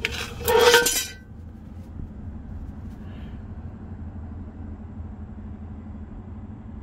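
Cast iron Griswold No. 9 Dutch oven clanking as it is handled by its wire bail handle, a metallic clink with a short ring in the first second. A steady low hum follows.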